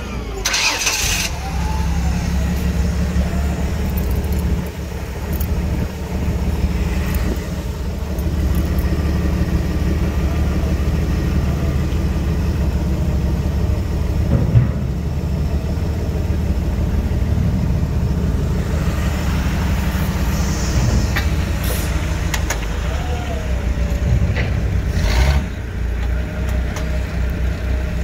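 Gasoline engine of a TUG MA50 baggage tractor running steadily at idle.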